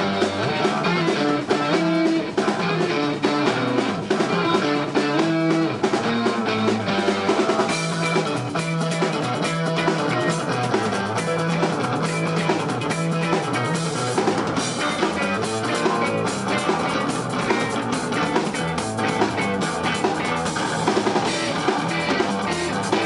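Live rock band playing an instrumental passage, with guitar and drum kit, recorded from the audience in a small club.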